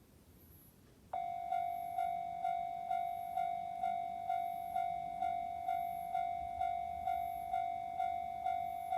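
Electronic level-crossing warning bell on a Japanese railway crossing, starting abruptly about a second in and ringing a steady clang-clang about twice a second, the signal that a train is approaching.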